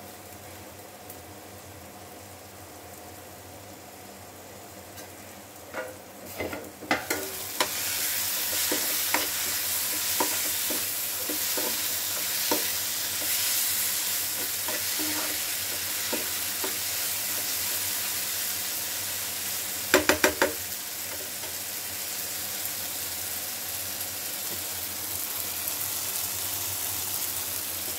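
Paneer, onion and tomato mixture sizzling in a frying pan, with a steel spoon scraping and clinking against the pan as it is stirred. About six seconds in, metal clatters as the steel plate covering the pan comes off, and the sizzle turns much louder. About twenty seconds in there is a quick run of clanks from the spoon knocking on the pan.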